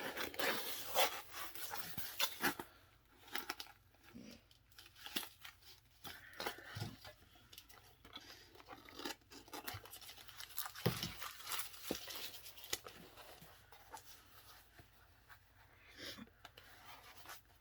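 Packing tape being pulled and torn off a cardboard box as it is opened, with the cardboard scraping and rustling: irregular tearing and scratching, busiest in the first few seconds, then sporadic.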